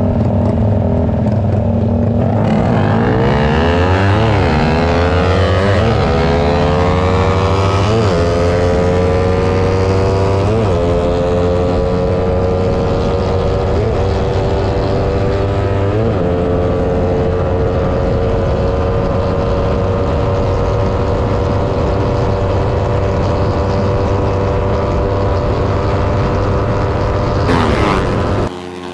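Underbone racing motorcycle's single-cylinder engine at full throttle in a drag run, heard from a camera mounted on the bike. Its note climbs and drops back at each of about five upshifts, then holds at high revs until it cuts off just before the end.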